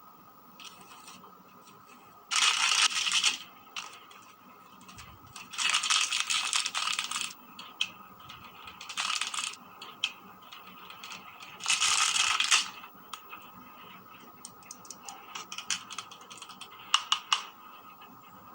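Small plastic toy pieces and packaging rattling in bursts of about a second as they are handled and shaken, then a run of sharp clicks near the end.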